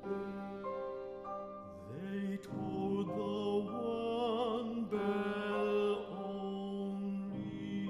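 Classical chamber music for tenor, string quartet and piano: sustained string chords under a melody line with wide vibrato, swelling louder about two and a half seconds in.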